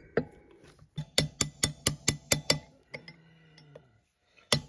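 Hammer tapping a chisel to bend the tab lock washers over the rear sprocket nuts of a motorcycle wheel. A single tap, then a quick run of about eight ringing metal taps, with another run starting near the end.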